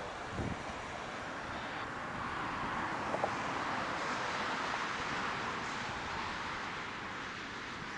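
Steady hiss of road traffic, swelling a little in the middle, with a couple of faint clicks.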